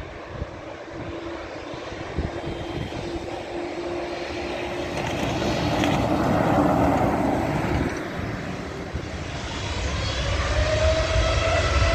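Jet engines of a Boeing 787-8 airliner running as it taxis past, growing louder. A whine that rises slightly in pitch comes in near the end over a deepening rumble.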